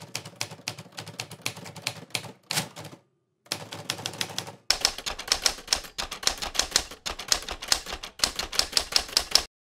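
Typewriter keys striking in rapid runs, like text being typed out. A short pause comes about three seconds in, then a louder, faster run that stops just before the end.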